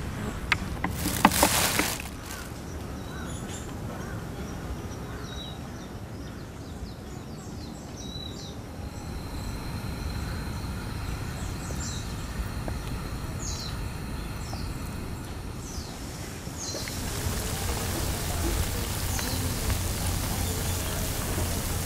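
A few knocks and clatter as a cup of dough is set into a plastic cooler box. Then quiet outdoor ambience with birds chirping. In the last five seconds comes a dense, rising hiss, the loudest steady part: sata andagi dough balls sizzling as they deep-fry in a pot of hot oil.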